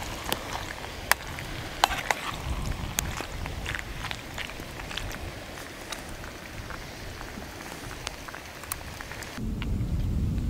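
Metal spoon clinking and scraping in a metal camping pot as thick pasta is stirred and scooped, a scatter of sharp clicks over a low rumble. About nine seconds in the clicks stop and wind buffeting on the microphone takes over.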